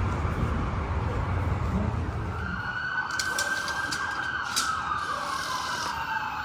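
A siren's long wail, sliding slowly down in pitch, starts about two and a half seconds in as a low rumble fades away. A few sharp clicks sound over it.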